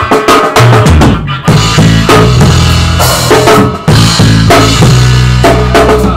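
Rock band demo recording: a drum kit hitting snare and bass drum hard, with bass guitar and electric guitar coming in loud about half a second in.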